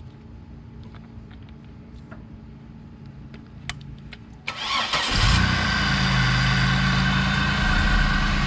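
Chevrolet Monte Carlo SS engine cranking and catching about four and a half seconds in, then idling steadily, just fitted with an aftermarket cold air intake.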